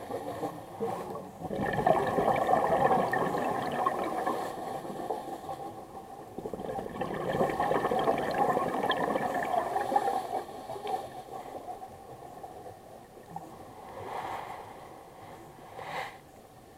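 Scuba diver's exhaled bubbles gurgling and rushing up past the camera in waves a few seconds apart, the regulator breathing heard underwater; the swells grow weaker near the end.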